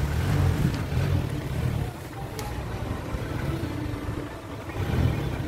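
Isuzu mini dump truck's 4HF1 diesel engine idling, a low rumble that drops back about two seconds in and comes up again near the end.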